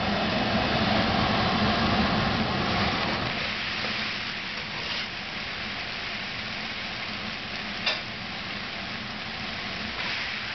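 Shredded fresh ginger sizzling and frying in hot oil in a pan on a gas stove, louder over the first few seconds. A single sharp click comes about eight seconds in, and the sizzle flares up near the end as strips of vegetable are dropped into the pan.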